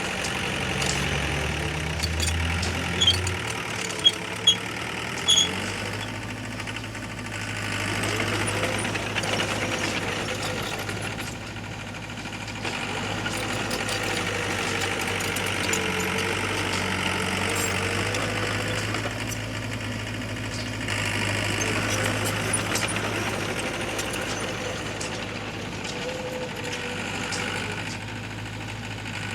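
Diesel engine of heavy earth-moving machinery running steadily, its pitch shifting in the first couple of seconds and its level rising and easing a few times. About three to five seconds in come four short, sharp, high-pitched sounds.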